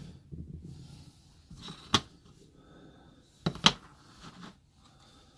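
Handling knocks on a workbench as F clamps and plywood pieces are moved about: one sharp knock about two seconds in, then a quick double knock a second and a half later, with faint rustling between.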